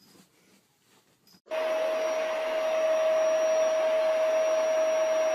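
A household appliance's electric motor switches on suddenly about a second and a half in and runs steadily with a constant whine over a broad rushing noise.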